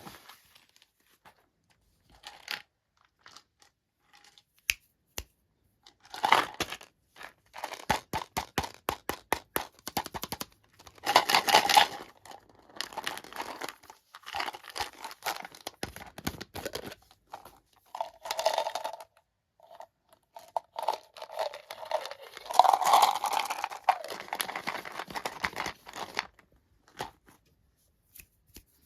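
Packaging being torn open and crinkled by hand, in irregular stop-start rustles with quick runs of sharp clicks. There are louder tearing bursts about eleven seconds in and again past twenty seconds.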